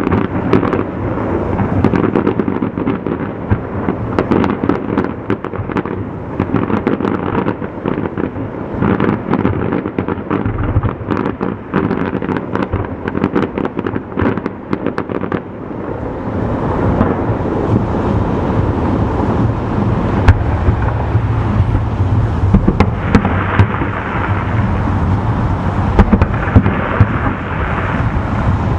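Fireworks going off in quick succession: a rapid run of bangs and crackles. After about 16 seconds it turns into a denser, steadier din, still full of pops.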